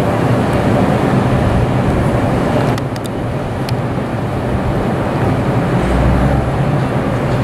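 Vintage IRT Lo-V subway train rumbling steadily as it approaches on elevated track, with a few sharp clicks about three seconds in and a heavier low rumble near the end.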